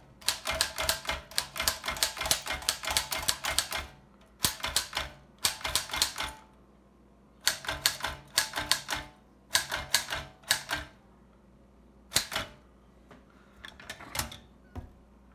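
1887 Caligraph No. 2 typewriter, a full-keyboard machine, typing capital letters on its separate capital keys. The typebars strike in quick runs of sharp clicks, with pauses between the runs.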